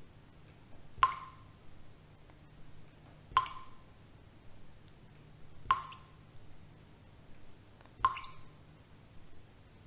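Slow, evenly spaced water drips: four single plinks about two and a half seconds apart, each ringing briefly.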